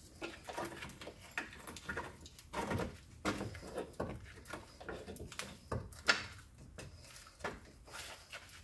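Irregular light metal knocks and clanks of a pry bar and bolts being worked against a car's rear subframe and body, the sharpest about six seconds in.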